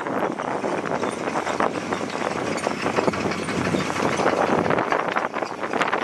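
Heavy earthmoving equipment at work: diesel machinery running with dense, irregular clattering and knocking.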